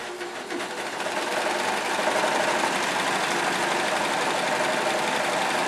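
Baby Lock serger (overlock machine) running, stitching and trimming a fabric edge. It gets louder over the first two seconds, then runs steadily.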